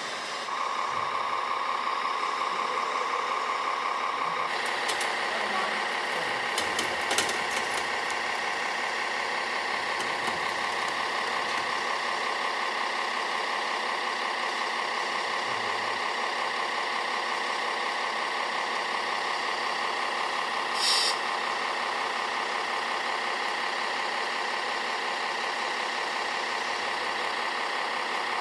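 Radio-controlled model dump trucks running with a steady electric whine and engine-like drone from their motors and sound units, with a few sharp clicks about 5 to 10 seconds in and a short hiss about 21 seconds in.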